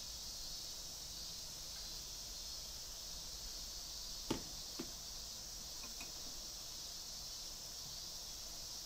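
Steady high chirring of crickets or other insects, with two light knocks about four and a half seconds in, half a second apart, as a small glass measuring jug is set down on a stainless steel counter.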